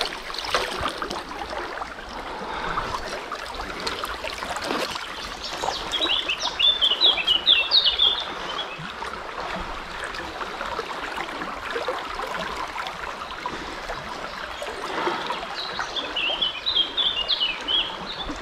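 Steady rush of a flowing river with a small bird singing over it in two runs of quick, high chirping phrases, one about six seconds in and another near the end.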